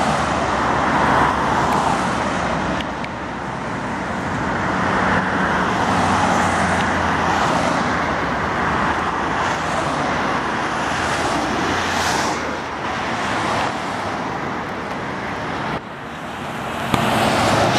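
Road traffic: cars and vans passing close one after another, each swelling and fading, over a continuous roar of tyres and engines.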